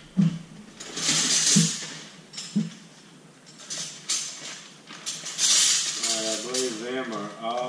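Metal hand tools clinking and rattling as they are handled and set into a steel tool box drawer, in two jingling bursts; a voice comes in near the end.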